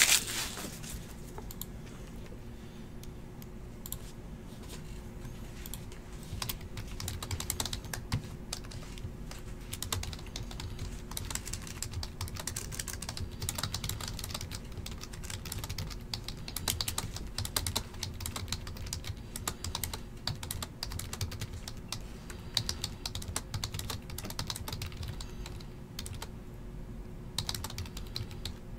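Typing on a computer keyboard: irregular runs of key clicks with short pauses, over a faint steady hum.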